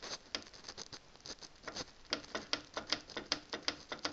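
A run of quick, irregular light clicks and taps, several a second and uneven in strength.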